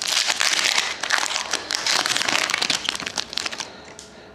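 Plastic-foil trading-card pack wrapper crinkling and crumpling in the hands for about three and a half seconds, then dying down to a few small rustles.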